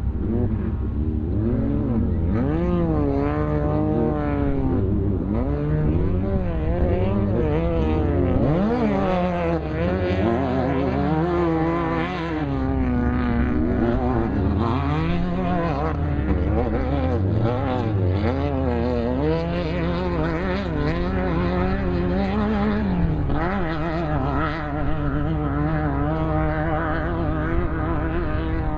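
Off-road race vehicle's engine running hard, its pitch rising and falling every second or two as the throttle is worked and eased.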